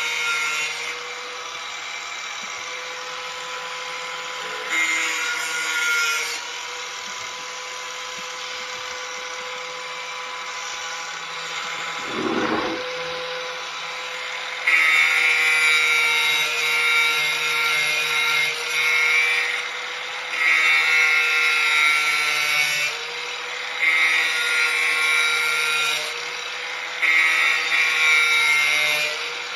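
Corded angle grinder running with a steady whine, its disc grinding the edge of a steel lawn mower blade in repeated passes of a few seconds each, most of them in the second half. There is a brief thump near the middle.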